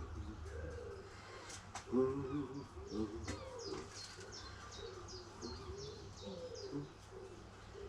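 A small bird singing a run of short, high, falling notes, about three a second, with a few sharp clicks and knocks.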